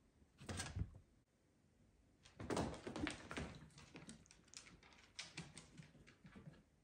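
Quick, irregular clicking and tapping of small animals' claws and paws on a wooden plank floor as they scamper: a short flurry about half a second in, then a longer run that thins out toward the end.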